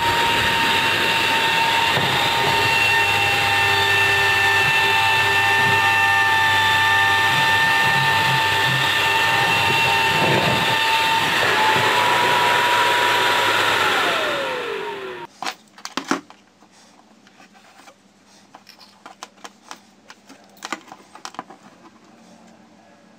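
A 12-volt, 9 × 9 cm high-current server cooling fan running flat out: a loud rush of air with a steady high whine. About fourteen seconds in, the power is cut and the fan spins down, its whine falling in pitch over a second or so. A few light clicks follow as the wires are handled.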